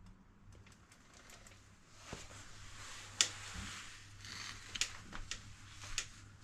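Allen key working in a bike pedal's axle as the pedal is loosened and unthreaded from the crank: scattered light metal clicks, then from about two seconds in a rustling scrape with a few sharper clicks.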